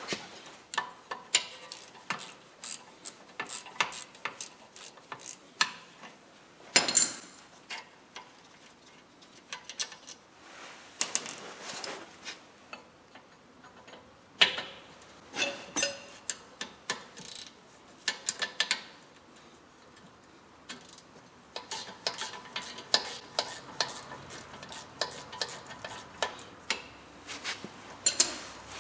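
Irregular metallic clicks and clinks of hand tools and parts at the rear brake caliper as it is taken apart, with a few sharper metal knocks and, late on, runs of quick ticking.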